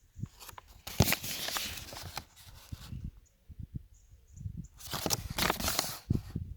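Handling noise: irregular low knocks and shuffles, with bursts of rustling about a second in and again near the end.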